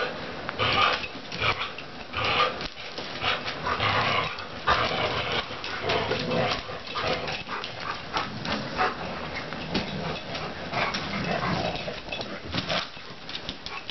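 Two dogs, a Labrador and a border collie, growling at each other in a tug-of-war over a rubber ring toy, in irregular bursts with scuffling and bumping on a wooden floor.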